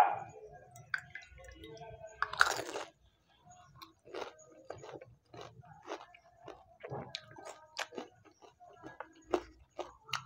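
Pani puri with green chilli being bitten and chewed close to the microphone: one loud crunch about two seconds in as the crisp puri shell breaks, then steady chewing with a run of short crunches.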